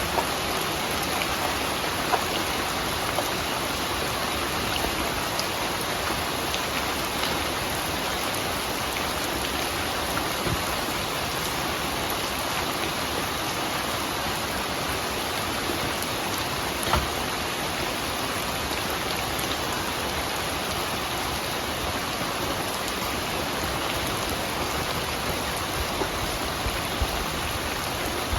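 Steady rain falling, with a few louder single drops hitting a surface now and then.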